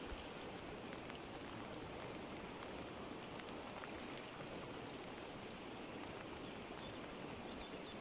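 Steady rushing of flowing water, with a few faint drip-like ticks scattered through it.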